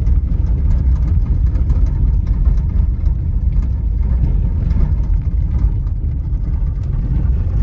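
A loud, continuous low rumble that goes up and down unevenly, with faint ticking above it.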